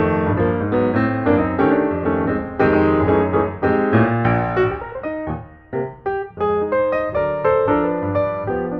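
Background piano music: a steady stream of notes.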